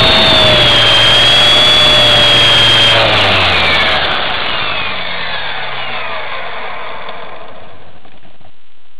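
E-sky Belt CP electric RC helicopter's motor and rotors running with a steady high whine, heard up close from on board. About three seconds in, the helicopter is down in the grass and the pitch falls as motor and rotors spin down, fading over several seconds.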